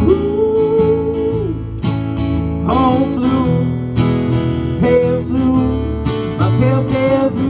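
Acoustic guitar strummed live over an electric bass line, in a steady folk-pop song.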